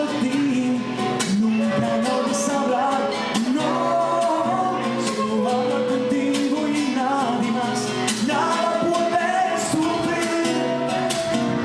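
Live Latin American music: plucked acoustic guitar accompanying a sustained melody line.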